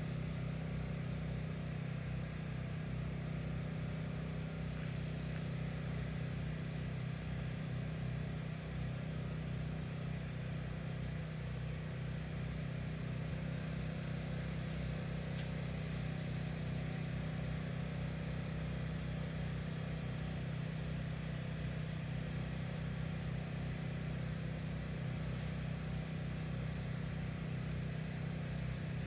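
A steady, unchanging low motor hum, like an engine running, with a couple of faint high chirps partway through.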